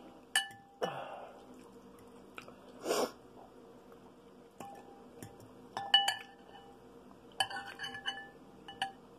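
Utensil clinking against a clear glass bowl of ramen noodles several times as noodles are lifted out, each clink ringing briefly like glass; the loudest clink comes about six seconds in, with a quick run of clinks near the end. A short noisy burst about three seconds in.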